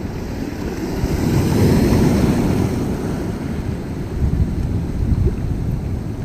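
Sea waves washing, with wind rumbling on the microphone; the wash swells louder about a second and a half in and eases off by about three seconds.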